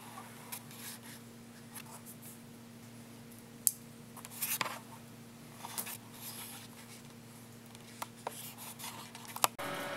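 Faint handling noise: scattered light clicks and a brief rubbing rustle over a low steady hum, with sharper ticks about four, six and eight seconds in.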